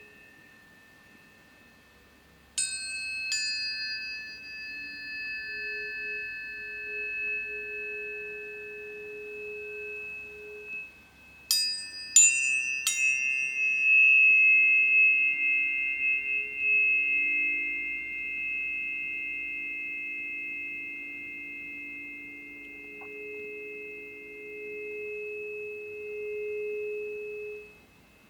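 Tuning forks struck for sound healing: two sharp metallic pings a few seconds in, then three more about eleven seconds in. Each leaves long, steady pure tones that overlap and slowly fade, with lower tones swelling and ebbing underneath.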